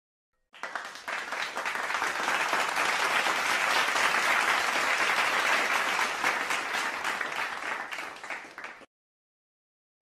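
Applause from a crowd, many hands clapping together. It comes in about half a second in, builds quickly, holds steady, then dies away before stopping near the end.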